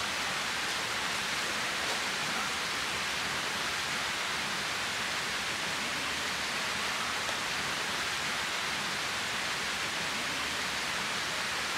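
A steady, even rushing hiss that holds at one level with no breaks.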